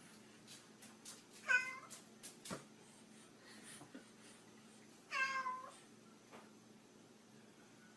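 A cat meowing twice, a few seconds apart, each meow about half a second long, with a few light clicks or taps in between.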